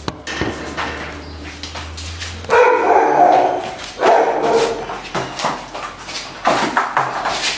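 A frightened, agitated dog barking and yelping loudly. After a low hum, about two and a half seconds in, come three long pitched cries with shorter yelps between them.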